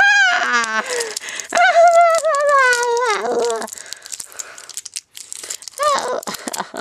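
A high-pitched voice crying out without words in long cries that waver up and down, for about three and a half seconds. Then comes the crinkling and crackling of clear plastic wrap and tape as hands handle a toy figure.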